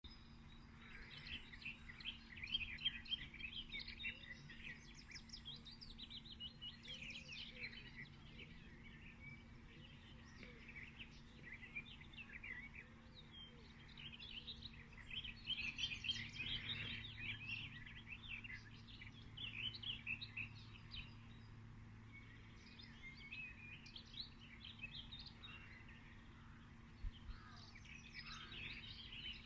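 Several small birds chirping and calling over one another in bouts, with a faint steady low hum underneath.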